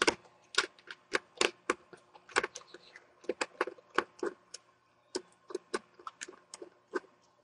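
Irregular sharp clicks, a few a second, from a small Phillips precision screwdriver turning a bezel screw out of a laptop's screen frame. The clicks thin out near the end.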